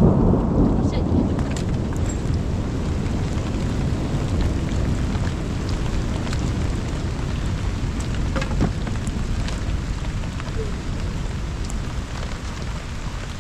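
Heavy rain falling steadily, with a deep rumble underneath and scattered sharp taps of drops.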